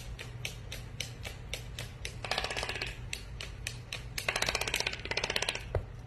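A toco toucan hopping on a hardwood floor, its feet making quick clicking taps about four or five times a second. Two stretches of fast rattling come from the bird, about two seconds in and about four seconds in, with a single knock near the end.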